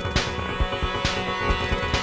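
Intro music with a steady, driving drum beat over held chords.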